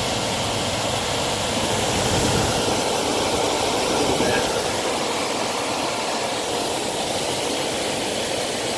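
HVAC system running: a steady, even rush of fan and moving air.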